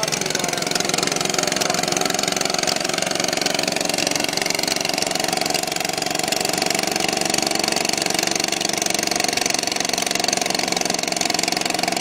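A river boat's engine running steadily at an even speed, a constant hum with no change in pitch.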